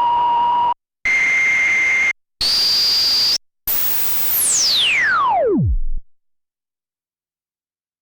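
Korg Monologue analog monophonic synthesizer playing short held notes with a noisy, hissy edge, each note higher than the one before, then a long pitch sweep diving from very high down to a low rumble that cuts off about six seconds in.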